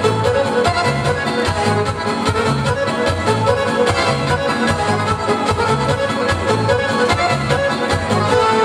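Croatian folk music for a circle dance (kolo), played with a steady beat.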